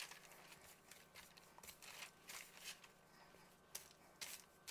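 Faint soft rustles and pats of floured hands pressing and folding buttermilk biscuit dough on a countertop, a handful of scattered strokes over a low steady room hum.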